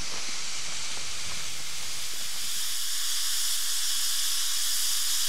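Small saddle-tank steam locomotive standing with steam hissing out steadily, the hiss growing a little louder about two seconds in.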